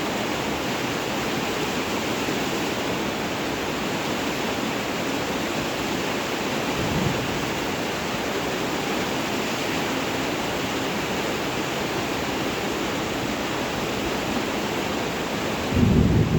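Steady, even hiss of heavy rain, with a brief low rumble about halfway through and a louder low rumble just before the end.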